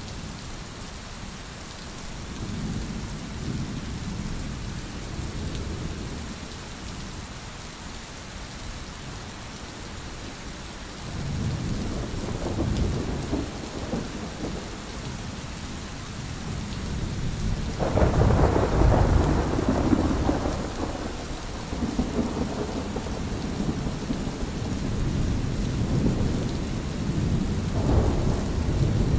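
Thunderstorm: steady rain hiss under rolling thunder. Low rumbles build from about a third of the way in, are loudest about two-thirds through, and return in further rolls near the end.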